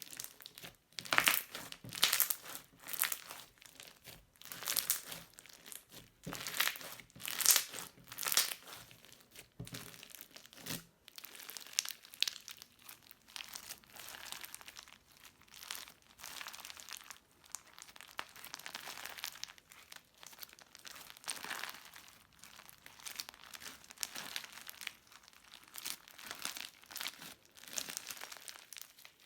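Crunchy slime being squeezed and kneaded by hand, crackling and popping in irregular runs. The crackles are loudest in the first ten seconds and grow softer and more continuous after that.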